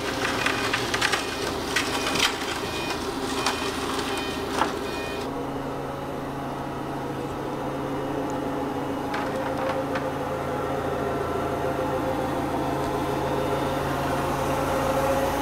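Propane-powered Caterpillar forklift engine running as it carries a heavy loaded pallet, with rattling and clanking over the first five seconds or so, then a steady engine drone.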